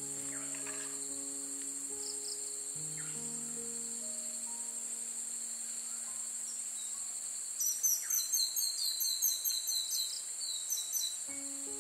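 Steady high-pitched insect chorus, like crickets, under soft music of long held notes that fades out about halfway through. About two-thirds in, a run of rapid high chirping calls starts.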